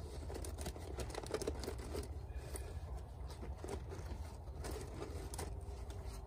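Hands handling fire-starting materials (fatwood and cotton wool): irregular rustling, crinkling and small clicks over a low steady rumble.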